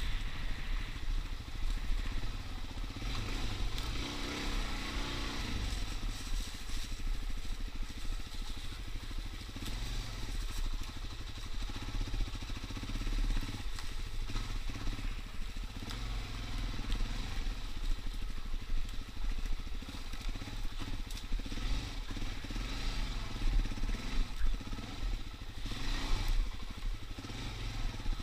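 Suzuki DR-Z dirt bike's single-cylinder four-stroke engine running at low speed. Its pitch rises and falls again and again as the throttle is opened and eased off.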